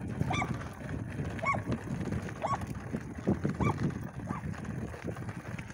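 Mountain bike rolling over a stony dirt track, its tyres and frame rattling steadily. A short, squeaky, honk-like note sounds five times, roughly once a second.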